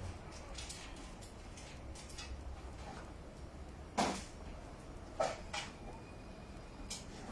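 A few sharp knocks or clacks over a low steady hum. The two loudest come about a second apart, a little past halfway.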